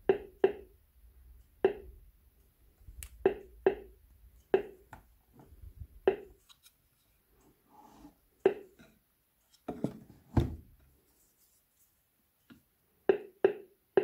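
Sharp, irregularly spaced clicks, roughly one a second and sometimes in quick pairs, with a heavier knock about ten seconds in.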